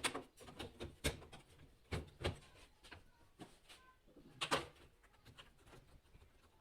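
A handful of separate light knocks and clicks of washing machine parts and tools being handled, the loudest near the start, about one and two seconds in, and again past four seconds.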